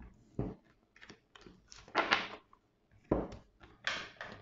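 Decks of cards being picked up and set down on a tabletop: several soft thunks, the two loudest about half a second in and about three seconds in, between brief rustles of cards sliding.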